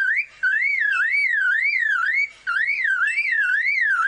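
Superb lyrebird mimicking a car alarm: a loud whistled siren wail sweeping up and down about twice a second, broken by two short pauses.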